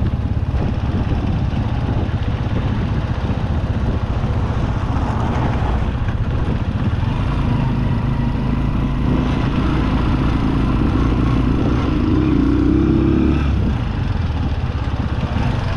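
Small motorcycle engine running as the bike rides along a gravel road, heard from the rider's seat. The engine note climbs gradually through the middle, then drops away about 13 seconds in as the throttle eases.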